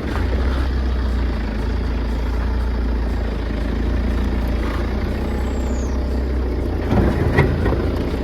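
Tata Safari Storme's diesel engine pulling steadily in four-wheel-drive low range as the SUV climbs a steep off-road slope, with a few knocks about seven seconds in.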